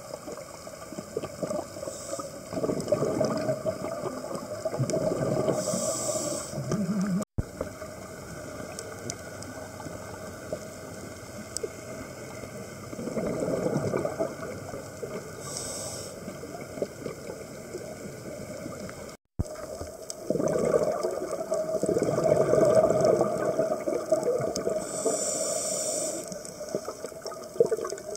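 Scuba diver breathing through a regulator underwater: three long bubbling rushes of exhaled air, each followed by a short hissing inhalation.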